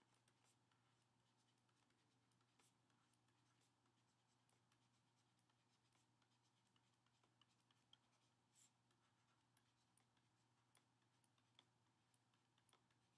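Near silence: faint room tone with a steady low hum and a few scattered soft clicks and scratches from handwriting being drawn on screen.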